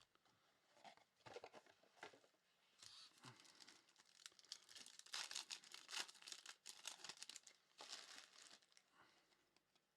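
Faint tearing and crinkling of plastic wrapping as a box and packs of basketball trading cards are torn open, in irregular bursts with short pauses.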